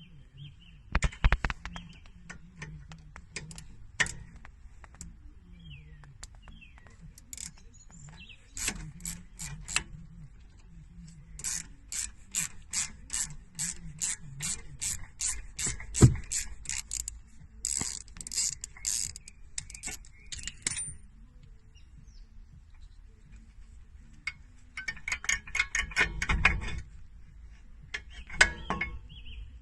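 Ratchet wrench clicking in several runs of quick, evenly spaced clicks while working on the front brake caliper, with one sharp metal knock about halfway through.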